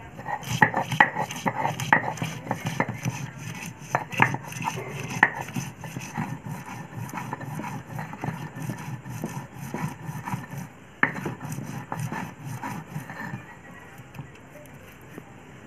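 Stone roller of a sil-batta grinding stone worked back and forth over onions on the stone slab: rough scraping of stone on stone with many sharp knocks in the first few seconds, one more knock later on, and the grinding growing quieter near the end.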